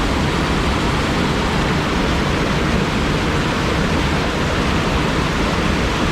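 Waterfall rushing close by, a loud, steady, unbroken roar of cascading water.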